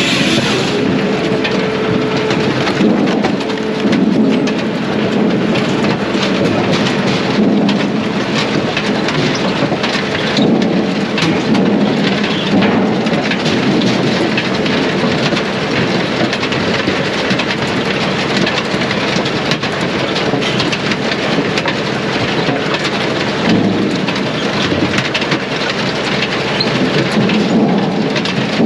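Brute Force USA 18-24HD diesel firewood processor running through hardwood: a loud, steady, dense clatter of wood with many small knocks in it, the machine's running underneath.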